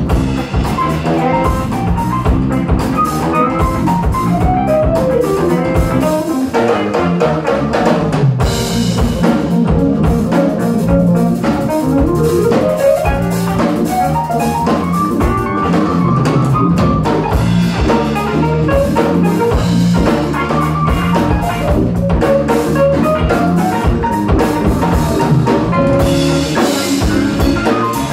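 Live band playing an instrumental funk tune on drum kit, electric bass, electric guitar, saxophone and keyboard, with a steady drum groove and runs of single notes over it.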